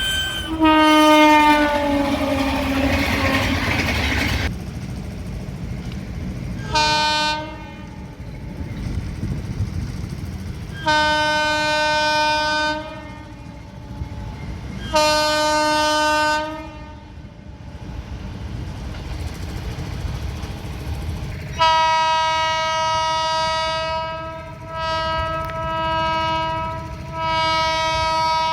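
Indian Railways train horns over the low rumble of trains on the track. About a second in, a horn blast falls in pitch as a train passes at speed with a loud rush. After that come a short toot and several longer steady blasts, the longest about two and a half seconds.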